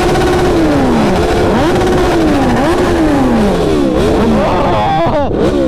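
Several Kawasaki superbikes, Z900s and a Ninja 1000SX, all with aftermarket exhausts, revved together. Their inline-four engines climb and fall in pitch again and again, overlapping, very loud.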